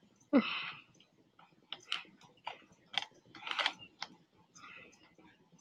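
A short breathy burst about half a second in, followed by scattered light clicks and taps at irregular intervals.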